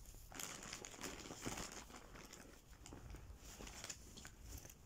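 Faint rustling and crinkling as hands rummage through a bag and handle a plastic-wrapped medicine packet.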